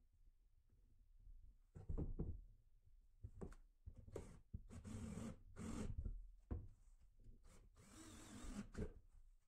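Cordless drill running in several short bursts as it is worked into a wooden board, the longest run just past the middle and another near the end. Light handling sounds come in the quiet first two seconds.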